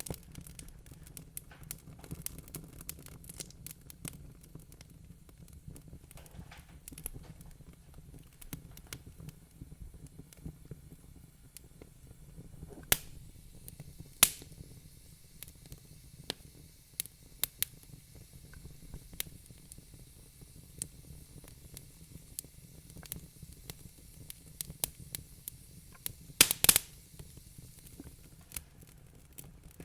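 Wood fire crackling in a fireplace: scattered sharp pops and snaps over a low steady rumble of the flames, with a louder pop about a third of the way in and a quick cluster of loud snaps near the end.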